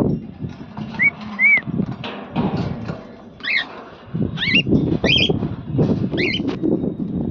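Cockatiels giving repeated short, arching chirps over strong wind buffeting the microphone in loud, uneven gusts.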